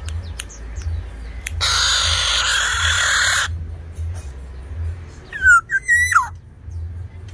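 Black-naped oriole calling: a loud, harsh, raspy call lasting about two seconds, then, about five seconds in, a short run of clear fluty whistled notes that slide up and down in pitch.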